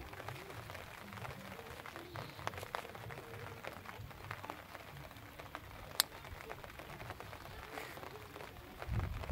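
Quiet outdoor background with faint, scattered ticks and patter and one sharper click about six seconds in.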